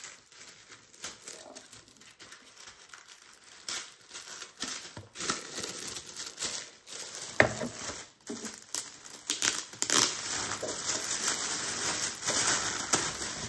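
Plastic wrapping crinkling and tearing as it is pulled off a canvas board. It is soft at first and grows louder and busier from about three to four seconds in, with one sharp snap of the film a little past halfway.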